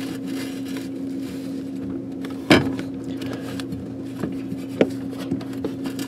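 Hands working a new rubber drive belt onto the motor and pump pulleys of a Maytag WU482 dishwasher. There are scattered knocks and rubbing, with one sharp knock about two and a half seconds in and a few smaller ones near the end, over a steady hum.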